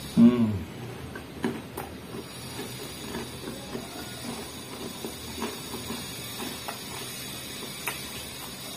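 An angle grinder running steadily in the background, leaking into the recording, under close-up chewing and mouth clicks from eating pizza. About a third of a second in, a short hummed "mmm" falling in pitch is the loudest sound.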